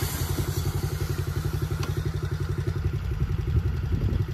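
Motorcycle engine running with an even, rapid beat.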